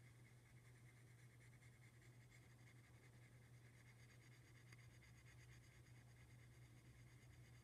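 Near silence: a faint steady low hum, with the light scratching of a pyrography pen tip drawn over wood.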